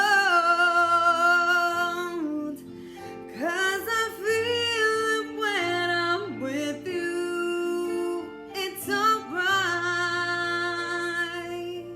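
A woman sings long held notes over a karaoke backing track, sliding between pitches and pausing briefly for breath between phrases.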